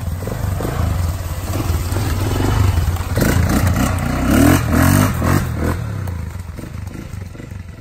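KXD 200 cc ATV engine revving as the quad accelerates over rough dirt trail. The pitch rises and falls with the throttle and is loudest about halfway through, then fades as it pulls away.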